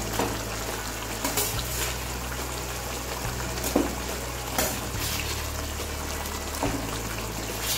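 Paneer cubes slid into a pan of simmering masala gravy, the gravy bubbling steadily, with a steel ladle clinking against the pan a few times as it moves the pieces.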